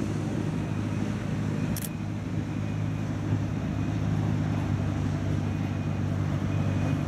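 A cruise ship's machinery humming steadily, a low even drone with a few fixed tones in it. There is a brief click about two seconds in.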